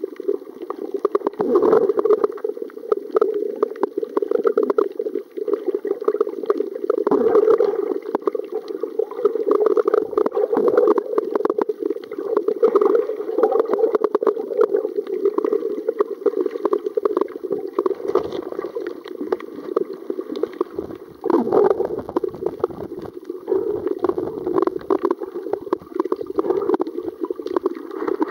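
Underwater water noise around a camera filming underwater: a steady gurgling, bubbling sound with fine crackle.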